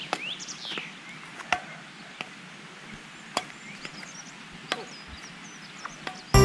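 Badminton rally: rackets striking a shuttlecock back and forth, four sharp hits about one and a half seconds apart. Music comes in near the end.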